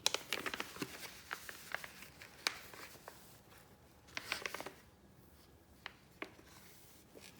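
Packaging and keyboard-kit parts being handled: a quick run of small clicks and taps, a brief rustle of wrapping about four seconds in, then a couple of single taps.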